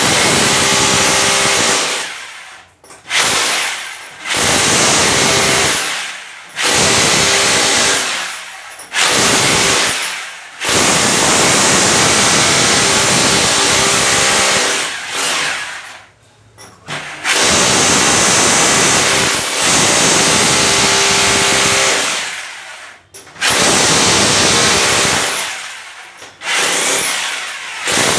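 Electric power tool chiselling into a wall to open it up for a new pipe fitting. It runs in about eight bursts of a few seconds each, with short pauses between them.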